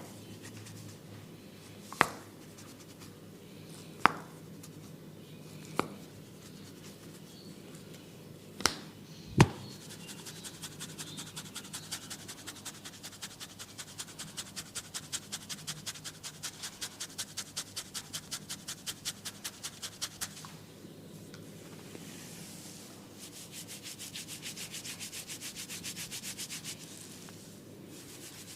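Hands working a head massage: a handful of sharp cracks spaced about two seconds apart, then fast, even, rhythmic rubbing strokes on the scalp in a long run and a second, shorter run near the end.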